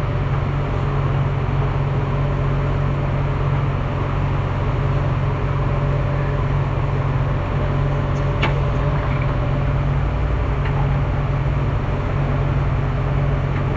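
An engine running steadily, a constant low hum, with a couple of faint clicks, the clearest about eight seconds in.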